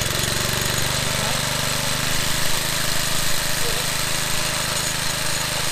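Webb cylinder lawnmower's small petrol engine running steadily just after being started, an even, unchanging beat.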